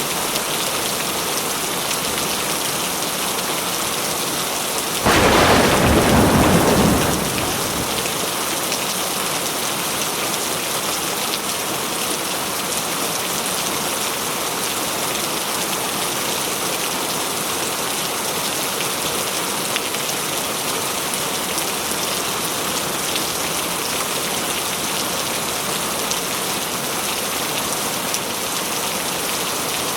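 Steady rain falling, with one sudden clap of thunder about five seconds in that rumbles for two or three seconds and then fades back into the rain.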